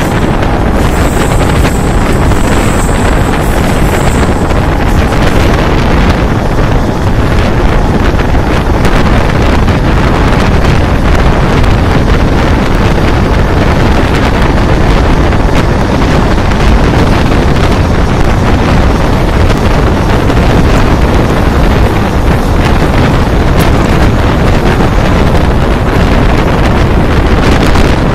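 Moving Mumbai suburban electric local train running along the track, its rumble mixed with strong wind buffeting the microphone held outside the coach. A thin high whine sounds for a few seconds near the start.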